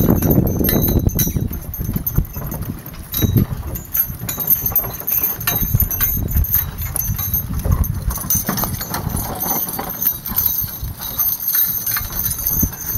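A pair of buckskin miniature ponies pulling a cart across grass: irregular hoofbeats with rattling and jingling from the harness and trace chains, over a steady low rumble.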